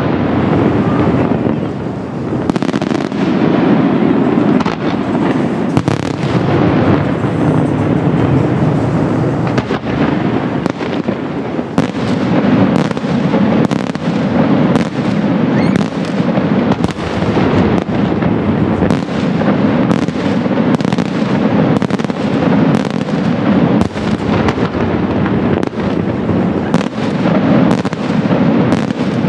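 Italian daytime fireworks barrage: aerial shells and salutes bursting without pause, sharp bangs every second or so over a dense, continuous rumble of overlapping explosions.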